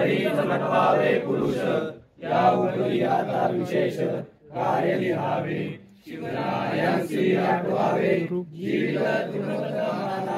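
A crowd of people reciting a Marathi verse in unison, line by line, in a chanting cadence. About five phrases of roughly two seconds each are separated by brief pauses for breath.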